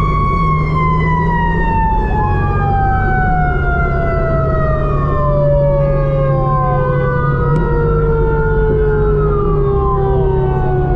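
Fire engine siren: a mechanical siren winding down in one long falling tone while an electronic siren wails up and down about every four to five seconds, over the steady drone of the fire engine's engine while it drives to the call.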